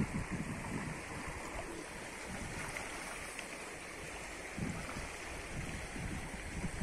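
Wind buffeting the microphone in irregular low gusts, over a steady rushing noise, strongest at the start and again in the last couple of seconds.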